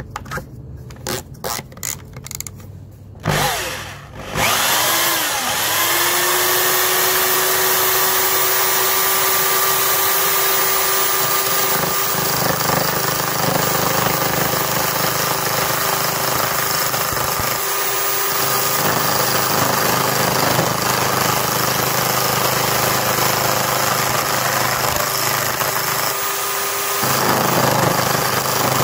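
A few clicks and knocks as a wooden block is fitted in a drill chuck, then a corded electric drill, used as a small wood lathe, starts about four seconds in, whining up to speed and running steadily while a chisel shaves the spinning wood.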